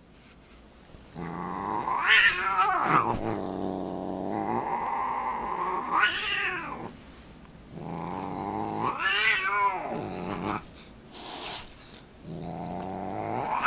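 Seal-point Siamese cat growling in long, low, drawn-out growls that swell three times into rising-and-falling yowls, at about two, six and nine seconds in, then starts another near the end. It is an annoyed cat warning off a dog that keeps pestering it.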